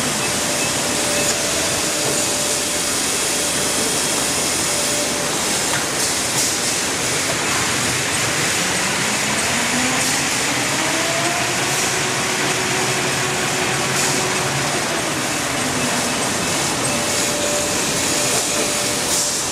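Toilet paper production machinery running with a steady, even factory noise. A tone rises in pitch about eight seconds in, holds, then falls back a few seconds later.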